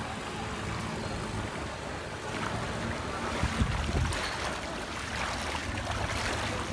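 Floodwater sloshing and swishing around legs as people wade through it, with a few stronger splashes about halfway through. Wind rumbles on the microphone underneath.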